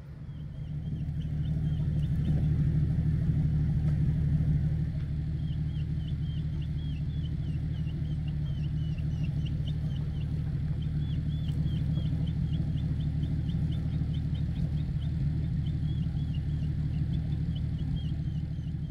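Off-road 4x4's engine running steadily as it drives the trail, a low drone that swells about a second in and then holds. A faint high squeaky chirping repeats over it for most of the time.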